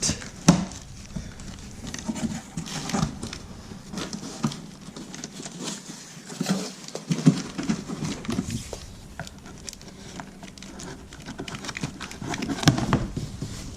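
A cardboard shipping box being cut and opened with a Swiss Army knife: irregular taps, scrapes and clicks of the blade and handling on cardboard.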